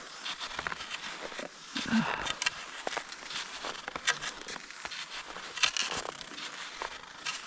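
Cross-country skis sliding over snow and ski poles crunching into it: a run of irregular crackles and scrapes.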